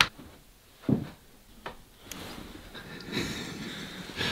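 A click and then a soft thump about a second later, as a bedroom door's metal lever handle is worked and the door pushed open, followed by quiet room noise.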